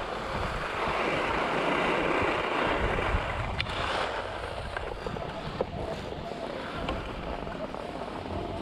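Skis sliding and scraping slowly over packed snow, a steady hiss mixed with wind rumbling on the backpack-mounted action camera's microphone. A single sharp click about three and a half seconds in.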